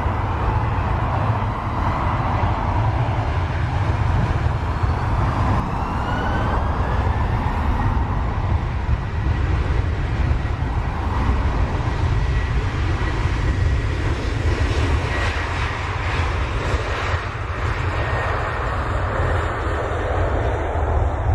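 Jet engines of a Boeing 737-800 airliner running, a steady loud roar over a deep rumble, with a faint whine and a couple of faint rising tones about six seconds in.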